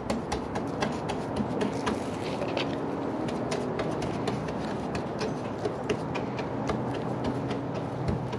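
Resin-loaded paintbrush dabbing and stippling wet resin into fiberglass cloth on a boat hull: a run of quick, irregular taps and clicks over a steady low hum.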